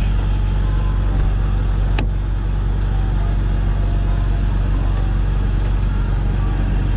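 Jeep engine idling steadily, with a single sharp click about two seconds in.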